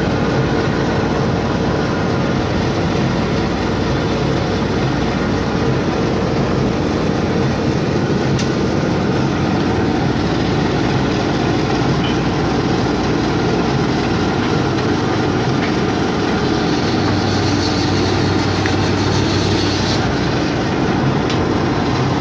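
An engine running steadily at one constant speed.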